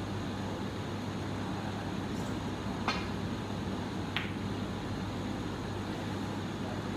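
Snooker shot: the cue tip strikes the cue ball with a sharp click about three seconds in. A second, quieter click follows just over a second later as the cue ball hits an object ball. A steady low hum of room ventilation lies underneath.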